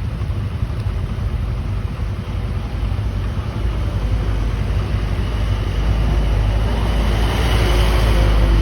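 A bus's engine and tyres rumbling on the road, growing louder over the last few seconds as it draws closer.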